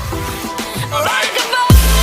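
Electronic music with a beat. A heavy, deep bass comes in near the end.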